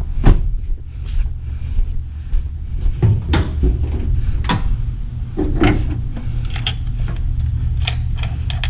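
A series of short, sharp clicks and knocks as the hood of a 9th-generation Honda Civic Si is released and raised, over a steady low rumble. The loudest knock comes about three and a half seconds in.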